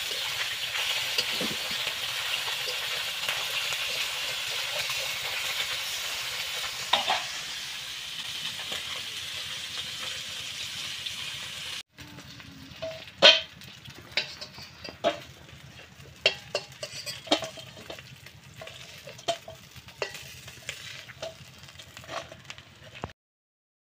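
Small whole fish frying in hot oil in an aluminium wok: a steady sizzle, with the odd scrape of a metal spatula. About halfway through the sizzle stops, and a string of sharp clinks and knocks follows as the metal spatula strikes the wok and a steel bowl while the fried fish are lifted out.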